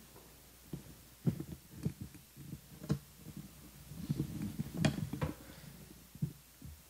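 Microphone handling noise: scattered low thumps and rustles with a few sharper clicks as a handheld microphone is moved and held up close to a speaker's mouth.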